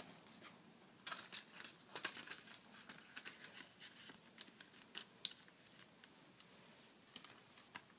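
Discs being pressed back onto the hubs of a steelbook case: faint clicks and plastic rustling starting about a second in, thinning out after about five seconds.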